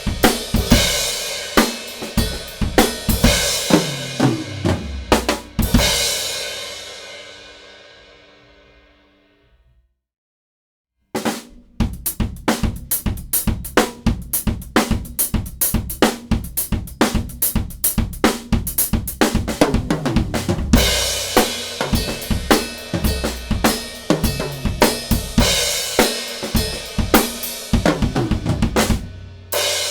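Drum kit playing: Tama Silverstar drums with hi-hat, crash and ride cymbals that the owner takes for Sabian AAs. After a few seconds of beats and crashes, a last cymbal crash rings out and dies away to silence about ten seconds in. The kit starts again a second later with a fast, steady beat, and crashes return near the end.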